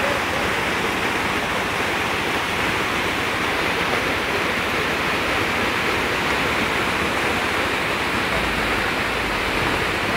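Swollen, muddy river in flood rushing past below a footbridge: a steady, unbroken rush of water.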